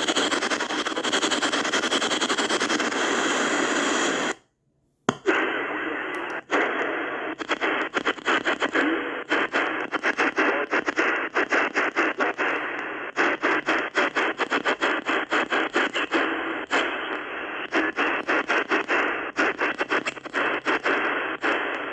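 ATS-20 receiver's speaker hissing with static across the 27 MHz CB band. The audio drops out for under a second about four seconds in. From then on the static is broken by rapid, irregular clicks as the tuning knob steps the receiver through frequencies in USB mode.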